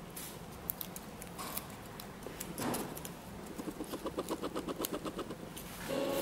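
Paper card being folded and creased by hand: soft crinkles and ticks, with a quick run of rubbing strokes from about four seconds in as the crease is pressed. A short, louder tone comes in near the end.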